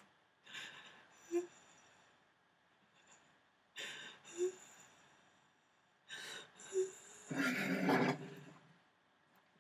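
A woman's acted sobbing: sharp gasping breaths with short catches in the voice every two to three seconds, then a longer, louder wailing sob near the end.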